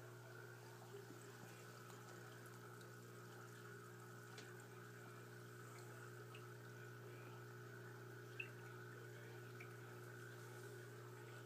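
Near silence: room tone with a faint steady hum and a single light click about two-thirds of the way through.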